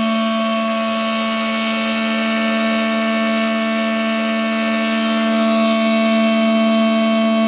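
Automated circumferential MIG welding machine running: a steady hum with several fixed tones over an even hiss, unchanging throughout.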